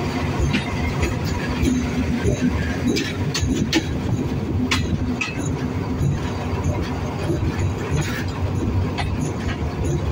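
Alsthom diesel-electric locomotive running as the train rolls slowly over the rails: a steady low rumble with sharp wheel clicks at the rail joints, several in the first half.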